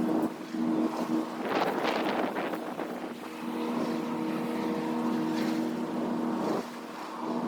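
A steady low engine drone that drops out for a moment and stops near the end, with gusts of wind buffeting the microphone.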